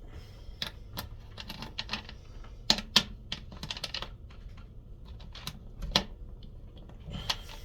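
Irregular light clicks and taps of small hand tools and metal parts being handled, as a socket is readied for a nut on a transformer.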